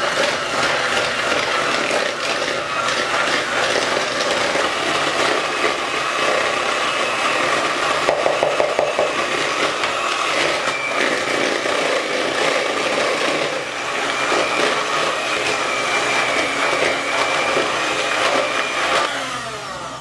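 Electric hand mixer running steadily, its beaters creaming butter with white and brown sugar in a mixing bowl. It stops just before the end.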